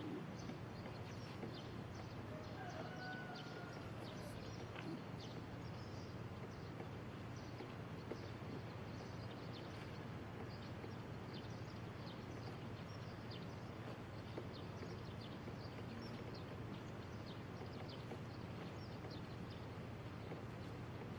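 A cat grooming itself, licking its fur and face in a running patter of small clicks over a steady low hiss.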